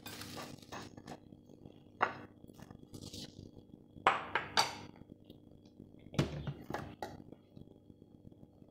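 Dishes clinking and knocking on a tiled countertop as a plate is handled and moved: a handful of sharp clinks spread out, the loudest about two and four seconds in.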